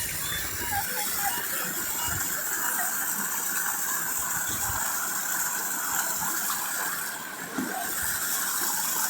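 Waterfall water rushing and splashing over rocks, a steady rushing noise.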